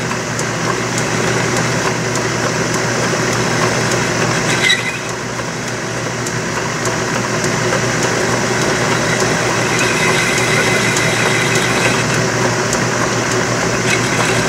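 Logan metal lathe running under power, its tool bit facing off the end of a workpiece in the chuck: a steady machine hum with cutting noise, briefly easing a third of the way in.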